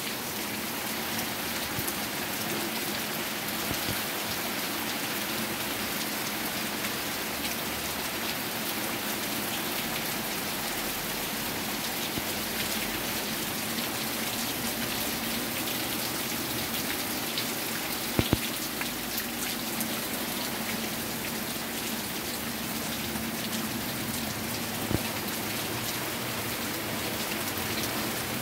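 Steady rain falling and pattering on surfaces. A few sharp clicks stand out, a double click about two-thirds of the way in and a single one near the end.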